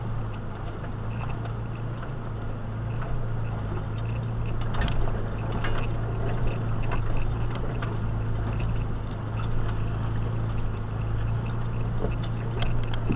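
Steady low engine drone heard from inside a 4x4's cabin at crawling speed on a rough trail, with scattered clicks and rattles from loose items and the rocky ground.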